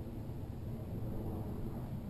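Steady low rumble of outdoor background noise, with no shot or other sharp sound.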